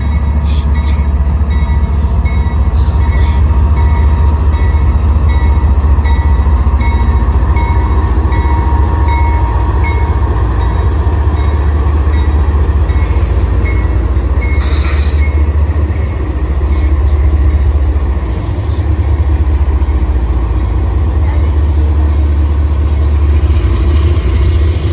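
A train rolling past close by: a loud, steady low rumble, with two brief high-pitched metallic bursts about halfway through.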